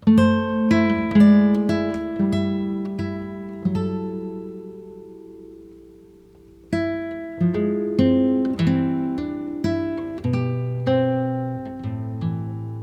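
Background music: a solo acoustic guitar playing plucked notes that ring and decay. It dies away to a low level about halfway through, then picks up again with fresh notes.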